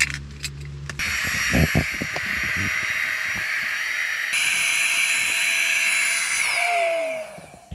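Small electric air pump inflating a Trekology UL80 sleeping pad through its valve: a steady motor whine with rushing air, starting about a second in. It changes tone about halfway, then winds down with a falling pitch near the end.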